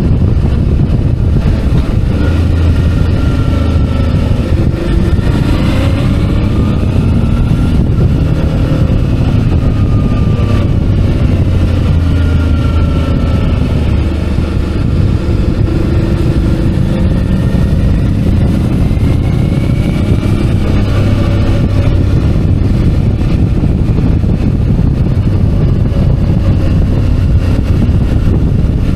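Suzuki DL650 V-Strom's V-twin engine running under way over a heavy low rumble, its pitch rising and falling several times as the speed changes.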